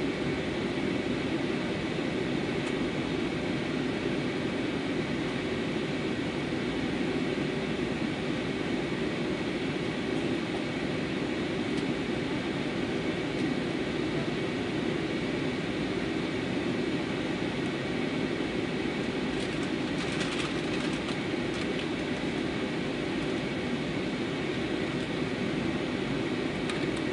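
Steady cabin noise of an Airbus A320 on its landing approach: an even rumble of engines and airflow heard from inside the cabin, with a faint steady whine above it. A few faint clicks come about twenty seconds in.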